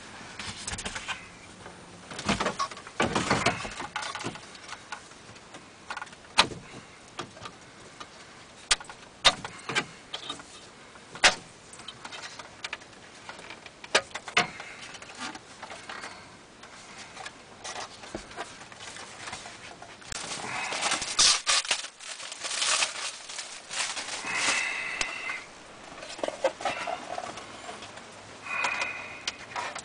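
Hands working in a 2012 Chevrolet Silverado's centre dash: scattered plastic clicks, knocks and rattles as the factory radio assembly is pulled out and the replacement navigation unit is set into the opening, with two short squeaks near the end.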